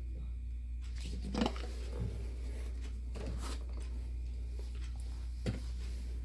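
A few small handling sounds, light clicks and a knock, the loudest about a second and a half in and a sharp click near the end, over a steady low electrical hum.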